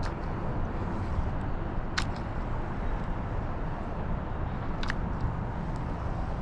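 Steady low outdoor rumbling noise, with a few sharp clicks: one at the start, a louder one about two seconds in, and two more near the end.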